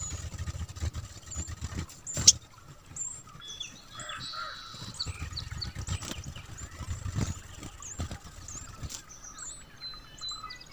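Sunbird chirping: short, high, rising calls about once a second, with a denser burst of twittering around four seconds in. A low rumble runs underneath, and a single sharp click about two seconds in is the loudest sound.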